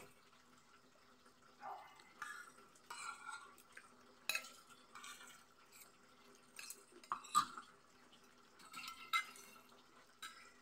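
Metal fork and spoon scraping and clinking against a ceramic plate of vegetables in short, scattered strokes, with a sharper clink about four seconds in and another about seven seconds in.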